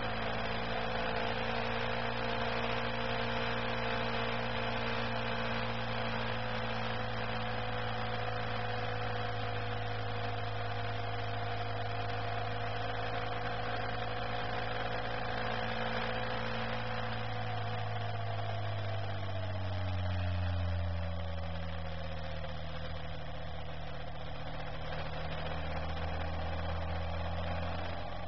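Steady drone of a vehicle's engine heard on board while cruising, with road noise; about two-thirds of the way through the engine note falls as the revs drop.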